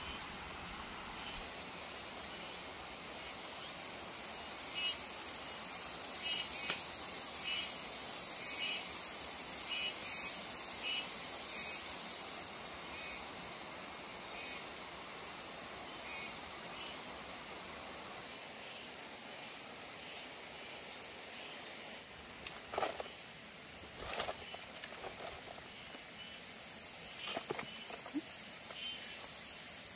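Insects calling in a steady high chorus that pulses about once a second. In the last third come a few sharp knocks and rustles.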